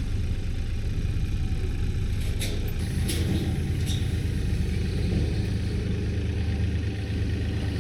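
An engine running steadily at low speed, with a few light ticks about two and a half to four seconds in.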